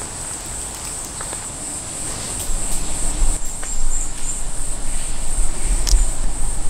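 Insects chirring in a steady high-pitched drone. A low rumble joins about two and a half seconds in and grows louder toward the end.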